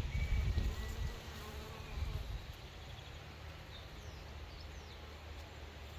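Buzzing of a honeybee swarm clustered in a tree, around its queen: a dense low hum, louder for the first couple of seconds, then steady and softer.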